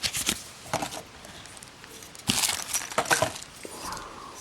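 Paper being handled, crinkling and rustling in two short bursts at the start and a longer run about halfway through.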